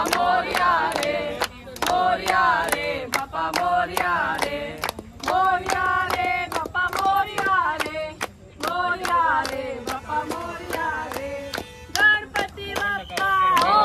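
A group of people singing a chant together, with steady clapping in time at about three claps a second.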